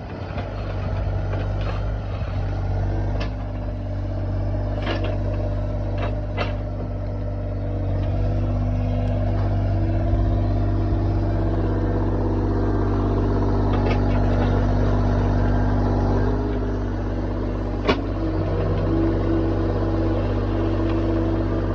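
Excavator's diesel engine running steadily, its pitch shifting a little at times, with several sharp knocks scattered through, the loudest about eighteen seconds in.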